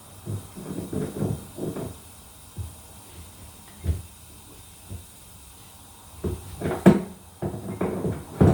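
Scattered knocks and clunks of a spanner and hands working at pipework under a bath, with one sharp click about seven seconds in.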